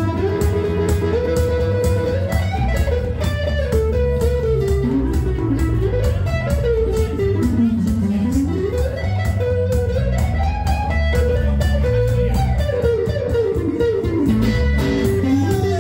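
Two electric guitars playing a jump-blues instrumental break: a lead line full of bending, sliding notes over a steady low rhythm part with an even beat.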